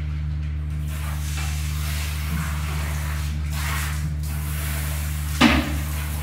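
Cloth rubbing over a plastic toilet lid and tank while it is wiped clean, then a sharp knock about five and a half seconds in as the toilet lid is lifted. A steady low hum runs underneath.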